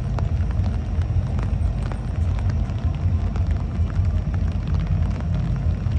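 Fireworks going off in a continuous rolling low rumble of booms, with faint crackles on top.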